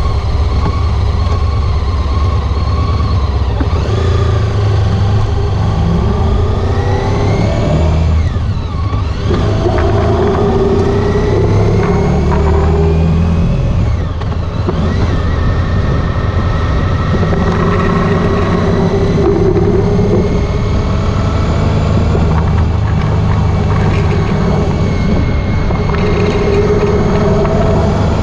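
Honda ST1300 Pan European's V4 engine running under way, its pitch climbing in several long pulls with brief drops between them as it shifts gears, over a heavy steady low rumble.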